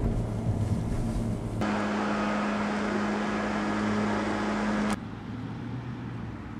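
Engine hum and road noise inside a moving car. It cuts off abruptly about a second and a half in to a steady low hum with hiss, which ends suddenly near five seconds and gives way to quieter background noise.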